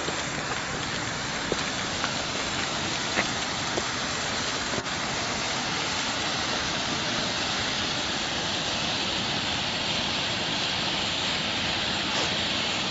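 Several pyrotechnic colour flares burning together with a steady hiss, with a few faint crackles in the first five seconds.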